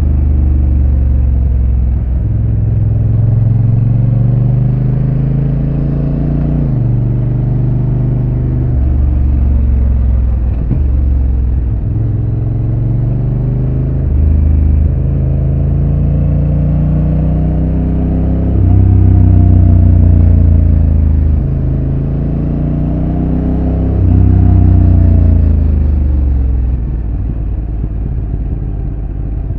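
Honda NT1100's parallel-twin engine with stock exhaust, heard on board while riding: the engine note repeatedly rises under acceleration and falls as the throttle eases, with several sudden drops in pitch at gear changes and two louder pulls in the second half.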